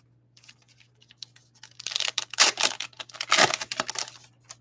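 Wrapper of a Topps Holiday baseball card pack being torn open and crinkled by hand: a few light rustles, then about two seconds of loud crackling about two seconds in.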